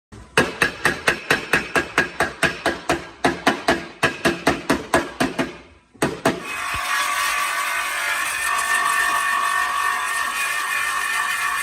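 Rapid hammer taps on a car body panel, about five a second with a short break midway, as a dent is worked out. About six seconds in the tapping stops and a steady whirring noise takes over.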